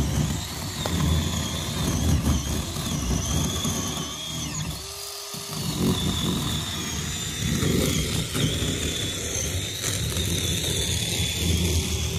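Battery-powered chainsaw cutting through a dead tree limb, its motor whine rising and falling as the chain bites into the wood, easing off briefly about halfway through.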